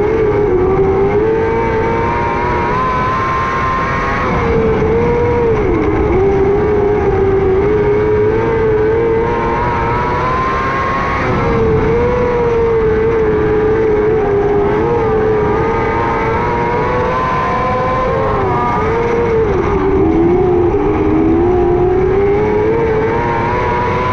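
600cc micro sprint car engine at high revs, its pitch holding high and then dipping briefly every several seconds as the throttle eases and comes back on, lap after lap.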